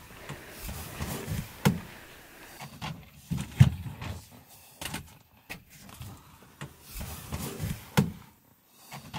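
Thumps and clunks of people climbing into a soft-top jeep and settling in, its doors and metal body knocking, a few sharp knocks with the loudest about three and a half seconds in.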